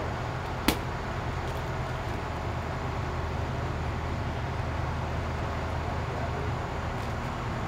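Steady low rumble of road traffic, with a single sharp smack about a second in.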